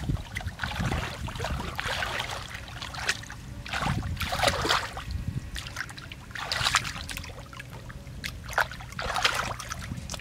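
Muddy water sloshing and splashing in irregular bursts as hands and legs stir through a shallow mud puddle, groping for fish, over a low steady rumble.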